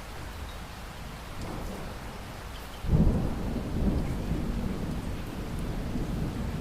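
Heavy rain falling steadily; about three seconds in, thunder breaks in suddenly and loud, and keeps rumbling low.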